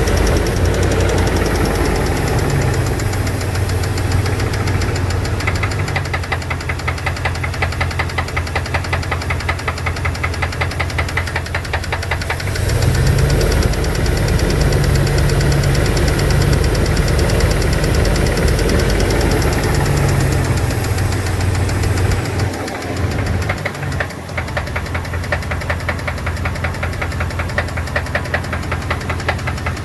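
2002 Dodge Dakota's 4.7-litre V8 running with a fast, even ticking knock, which the owner suspects is lifter trouble or piston slap. The engine note rises a little under halfway through, holds for several seconds, then drops back.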